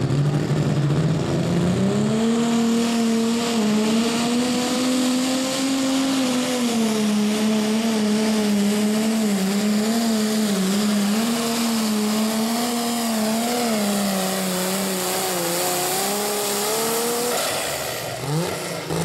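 Turbocharged diesel engine of a light limited super stock pulling tractor running flat out under load as it drags the sled. Its pitch climbs in the first couple of seconds, wavers up and down through the run, then falls away near the end as the pull finishes.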